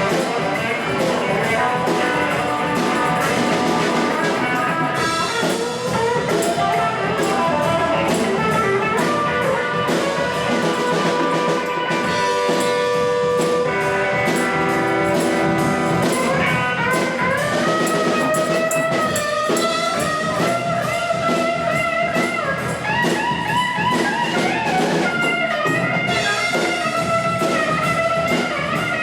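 A live rock band playing, with drums and guitar under a lead line; from about halfway through the lead plays high notes that slide and bend between pitches.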